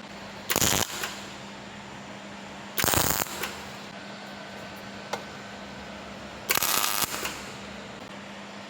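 Three short bursts of electric welding arc crackle, each about half a second long, spaced a few seconds apart: tack welds being struck on a joint. A steady low hum runs underneath.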